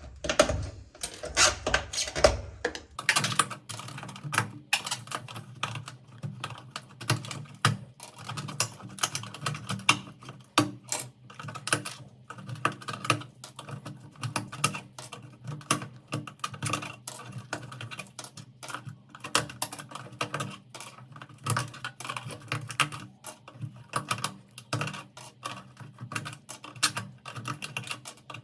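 Computer keyboard keys clacking in quick, irregular clicks as the keyboard is handled and worked over during cleaning. A low steady hum joins about three seconds in.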